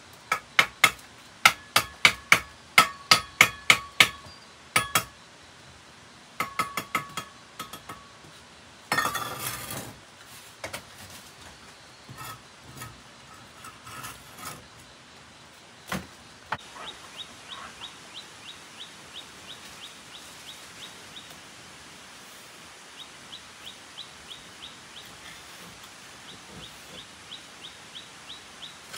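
Sharp ringing taps of a hard object striking something hard, about two to three a second for the first few seconds and again briefly a little later. They are followed by a faint, regular run of light ticks.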